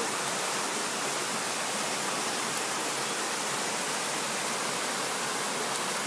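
A small waterfall cascading over boulders into a rock pool: a steady, even rush of water.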